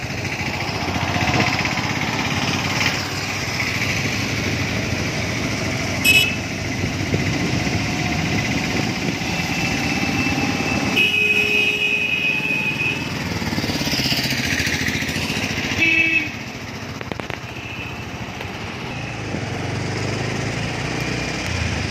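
Street traffic heard from a moving vehicle: engine and road noise run steadily, with a few honks. One honk lasts about two seconds near the middle and another comes about three-quarters of the way through. After the second honk the overall noise drops a little.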